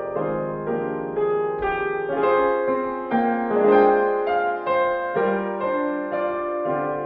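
Solo piano music: notes struck about twice a second, each left to ring and fade.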